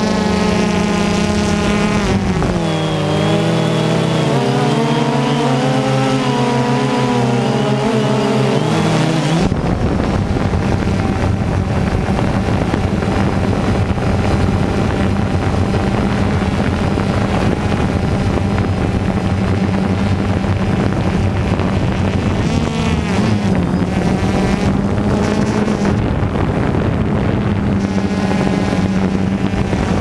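DJI Phantom 2 quadcopter's four motors and propellers humming, heard up close from on board. From about two to nine seconds in, the pitch wavers and shifts as the motors change speed while it manoeuvres, then it settles back to a steady hum.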